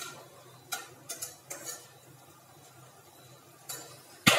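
Metal spoon clinking and scraping against an aluminium kadai while stirring bay leaves and whole chillies in hot oil: a handful of short clicks, with a sharper knock near the end.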